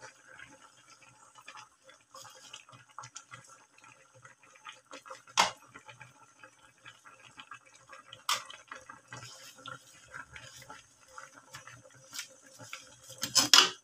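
Crabs and greens simmering in coconut milk in a wok: soft bubbling and crackling, broken by a few sharp clicks and knocks of a utensil against the pan, the loudest about five seconds in.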